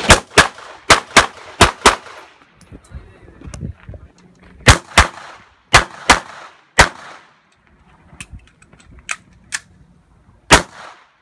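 Caracal C 9mm pistol firing in rapid pairs: six shots in the first two seconds, five more about five to seven seconds in, and one last shot near the end. A few fainter cracks fall between.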